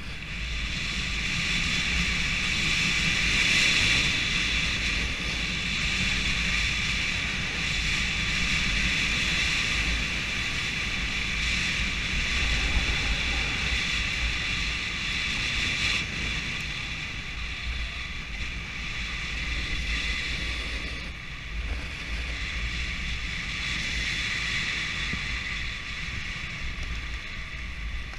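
Snowboard sliding and carving over packed, groomed snow, a continuous scraping hiss that swells and eases through the turns, mixed with wind buffeting the action camera's microphone.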